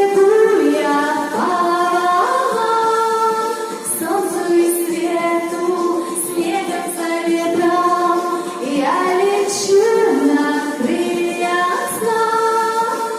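A woman's voice singing a slow, wordless melody in long held notes over background music.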